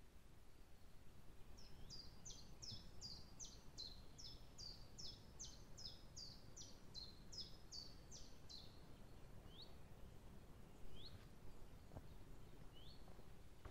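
A songbird singing faintly: a run of about eighteen quick, high, downward-sliding notes, two or three a second, for some seven seconds, then three single rising notes spaced more than a second apart.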